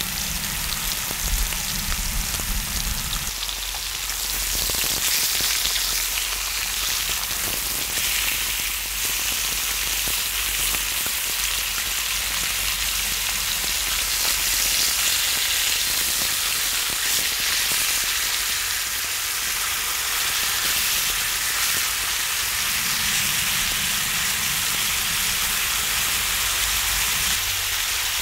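Pork belly slices sizzling in their own fat on a cast-iron cauldron-lid griddle (sotttukkeong): a steady frying hiss that grows a little louder about four seconds in.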